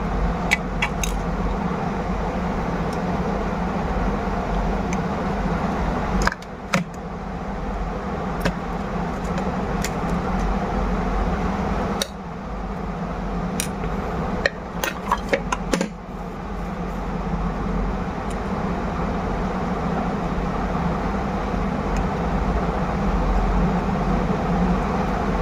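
Steady mechanical hum with a hiss running under everything, with scattered small clicks and taps from handling a phone's headphone-jack board while it is taken out for cleaning.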